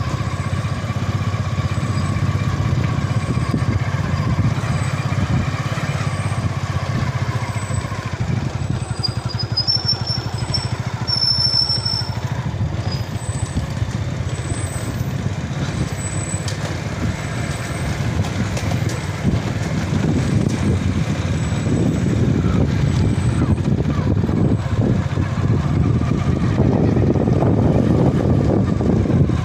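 Motorcycle engine running steadily while the bike is ridden, heard from the rider's seat; it grows louder over the last several seconds.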